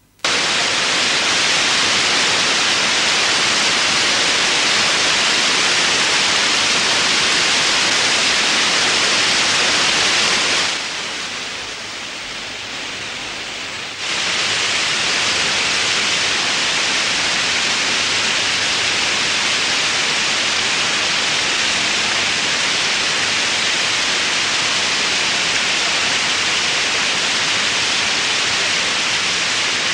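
Water pouring over a weir, a loud steady rush that starts suddenly and drops quieter for about three seconds near the middle before coming back at full level.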